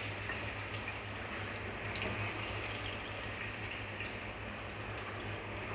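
Chopped onions frying in hot oil: a steady sizzle with a few faint ticks of spattering.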